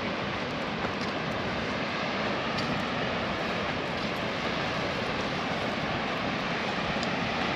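Steady rushing of wind over the microphone, with a flickering low rumble and no pitched sound in it.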